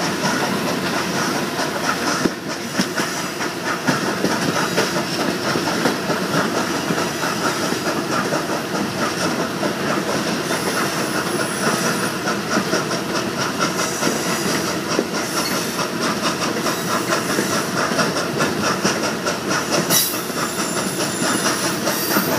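Passenger coaches of a steam-hauled excursion train running on the track. A steady rush of wheel and rail noise carries the clickety-clack of wheels over rail joints, heard from beside the moving coach.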